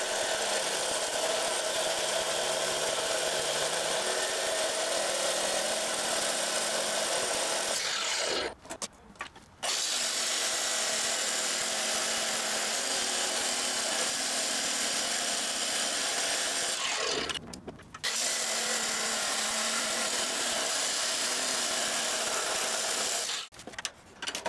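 Abrasive chop saw's cut-off wheel grinding through 2.5-inch mild steel round stock: a steady grinding noise that breaks off briefly twice, followed by a few clicks near the end.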